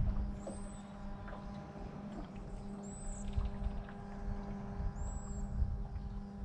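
A bass boat's motor humming steadily, over low rumbling, with three short, very high chirps spaced about two seconds apart.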